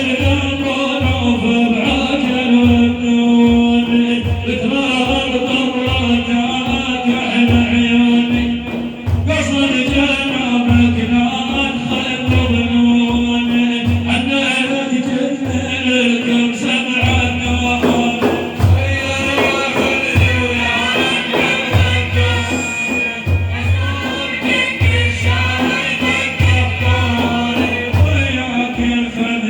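A madih, a praise song for the Prophet, sung by a man's voice over a steady drum beat of a little more than one stroke a second.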